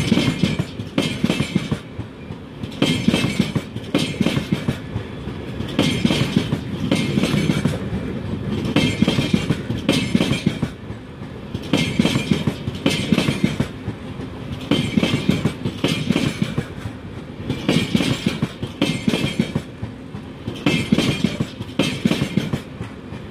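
LHB passenger coaches of the 22351 Patliputra–Yesvantpur Superfast Express rolling past: a steady rumble with a clickety-clack of wheels over the rail joints that comes in pairs, about every three seconds, as each coach's two bogies go by.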